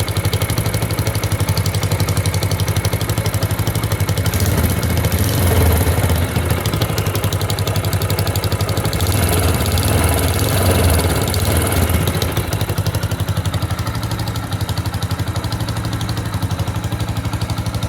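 Yamaha YBR125's 125 cc single-cylinder four-stroke engine idling, its exhaust pulses loud and rapid. There is extra exhaust noise from the header joint at the cylinder head, which the owner takes for a gas leak past a damaged exhaust seal.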